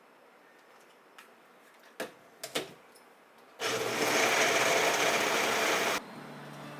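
A few light clicks and taps, then a small electric motor whirs loudly for about two and a half seconds and cuts off suddenly.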